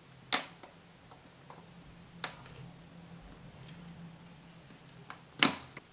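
Small clicks and taps of a circuit board and soldering iron being handled while a capacitor is desoldered from an LED driver. Two of them are louder, about a third of a second in and near the end, and a few fainter ones fall between, over a faint low hum.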